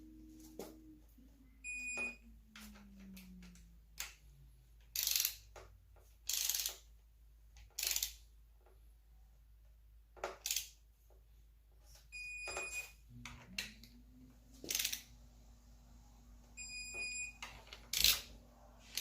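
Digital torque wrench beeping to signal it has reached its 18 ft-lb target on a camshaft bolt: short high-pitched beeps three times, about 2, 12 and 17 seconds in. Between the beeps come several short, loud rasping bursts as the wrench is worked.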